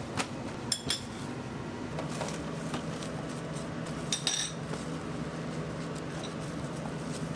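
Kitchen clatter of metal utensils clinking against cookware, a few sharp clinks over a steady low hum.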